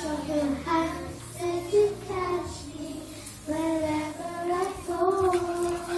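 A child singing a slow ballad solo, holding long notes in phrases, over a quiet backing track.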